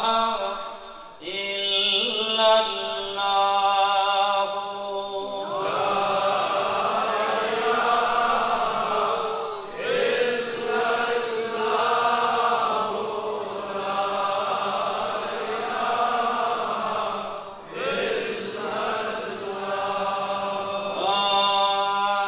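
Zikr chanting in call and response: one lead voice chants a line, and from about five seconds in a large congregation of men chants together in unison, thinning back to the lead voice near the end.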